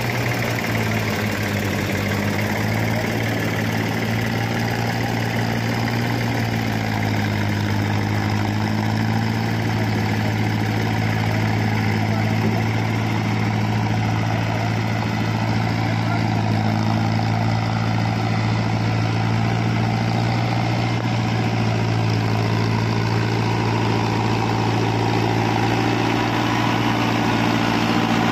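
Mahindra Arjun Novo 605 tractor's four-cylinder diesel engine running steadily while pulling a trolley loaded with sand, with a backhoe loader's diesel engine running as well. The sound grows a little louder near the end as the tractor comes close.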